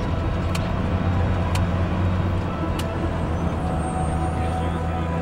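Armoured military vehicle running steadily on the move, a constant low engine and drivetrain hum, with three short clicks in the first three seconds.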